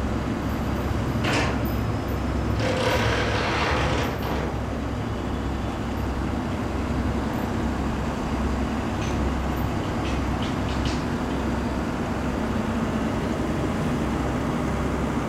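Heavy demolition machinery's diesel engine running steadily with a low rumble. There is a short noisy burst just over a second in, a louder noisy stretch about a second long near three seconds in, and a few faint clicks later.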